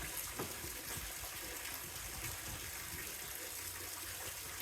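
Falling water from the sacred waterfall at Kiyomizu Temple, splashing steadily.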